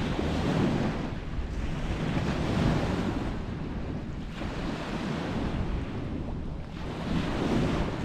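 Lake Erie waves washing onto the beach, swelling and falling back every couple of seconds, with wind rumbling on the microphone.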